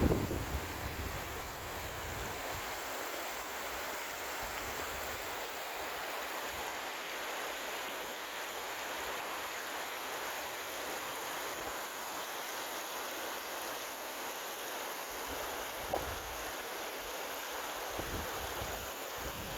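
Flowing water rushing steadily, with low puffs of wind buffeting the microphone near the start and again near the end.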